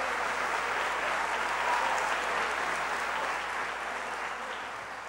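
Audience applauding after a live flamenco piece, fading away near the end.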